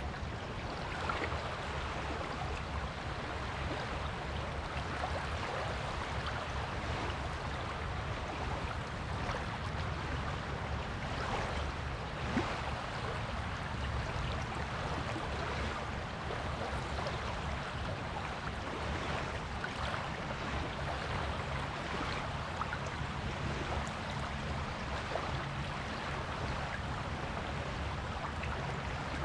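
Waves washing on a beach: a steady wash of surf with a low rumble underneath and scattered faint crackles.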